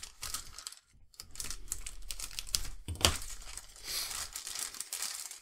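Thin clear plastic bag crinkling and crackling as a plastic model-kit sprue is handled and slid out of it, with one louder click about three seconds in.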